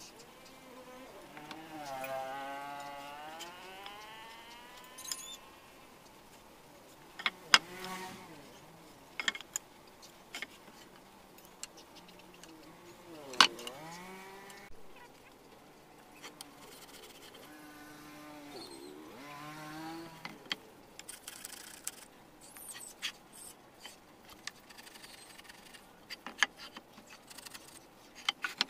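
Sharp clicks and taps of a steel carpenter's square being set down and handled against teak beams while marking out. Several drawn-out calls rising and falling in pitch sound in the background.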